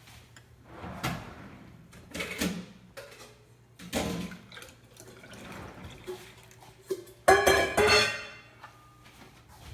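Milk poured into a blender jar, with knocks and clinks of kitchenware. A louder ringing clatter comes about seven seconds in.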